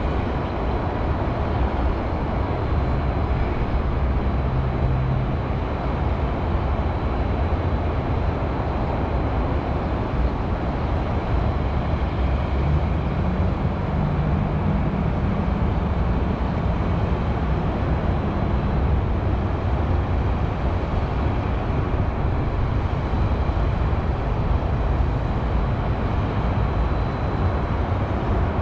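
Steady rumble and hiss of highway traffic in the city, with the low drone of a heavier vehicle's engine swelling and fading twice.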